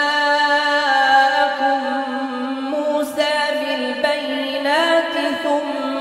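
A single voice chanting Quran recitation (tilawat) in long, drawn-out melodic notes. There is a short break about three seconds in, then the voice glides upward in a melisma.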